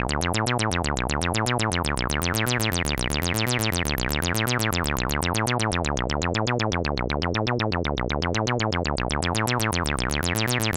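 Donner B1 analog bass synth running a fast repeating sequence of short sawtooth notes through its resonant low-pass filter. The filter cutoff, resonance and decay are swept by hand, so the notes open up and close down with a squelchy, chirpy 303-style acid sound.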